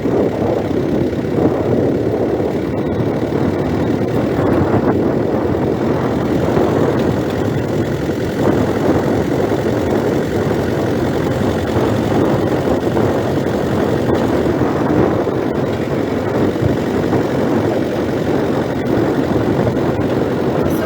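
Steady engine and road noise of a motor vehicle running at an even pace, with no clear change in pitch.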